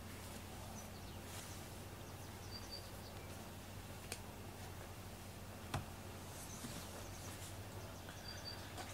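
Quiet room ambience: a steady low hum, with two light clicks about four and six seconds in and two faint, short high chirps.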